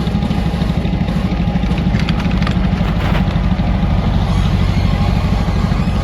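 Engine of a farm tour vehicle running steadily with a fast, even low pulse, heard from aboard, with light rattles of the ride over bumpy ground.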